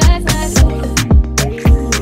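Background music with a steady beat: deep kick drum thumps and sharp percussion hits repeating regularly, over sustained synth-like tones.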